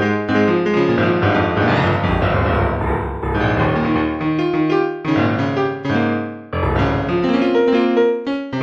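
Instrumental piano music: a run of melody notes over sustained low bass notes.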